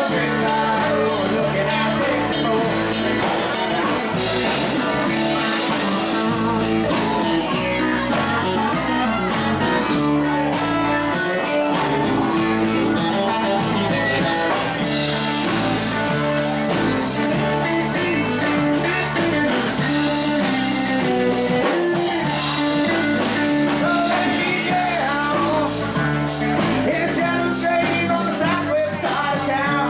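Live rock band playing at a steady, loud level: electric guitars over a drum kit.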